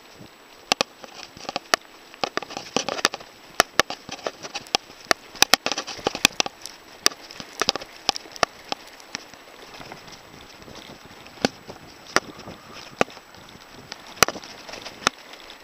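Mountain bike rolling over a bumpy dirt trail. The bike rattles and knocks at irregular moments, with tyre noise and some wind underneath. The knocks come thickly for the first several seconds, then more sparsely, with one sharp jolt near the end.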